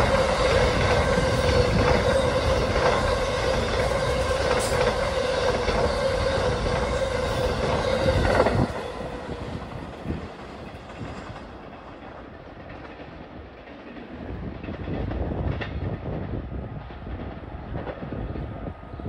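Amtrak passenger train of stainless-steel cars passing close at speed: a loud rush of wheels on rail with a steady high ringing tone. About eight and a half seconds in it cuts off suddenly to a much quieter distant train rumble.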